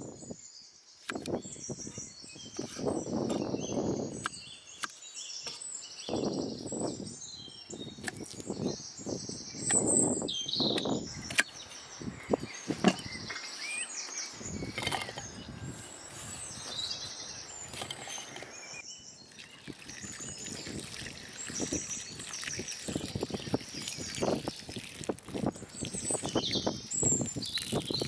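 A knife cuts raw potatoes into chunks on a wooden chopping block: repeated slicing strokes, with a few sharp knocks of the blade on the wood. Birds chirp throughout.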